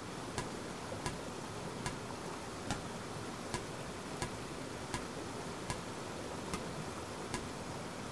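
Steady rush of water from a churning river outflow, with a sharp tick repeating a little more than once a second.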